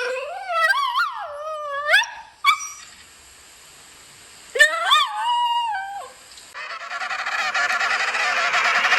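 Animal calls: long, pitched cries that slide up and down, one bout at the start and another about five seconds in, followed by a harsher, rasping call from about seven seconds in.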